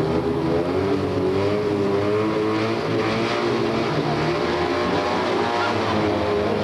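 Several Fiat 126p race cars' small two-cylinder engines running together at once, their pitches wavering up and down as they are blipped and held ready for a race start.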